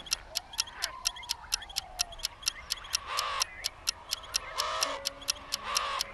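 Spooky sound-effect track: a clock ticking steadily, about four ticks a second, with crows cawing three times in the second half.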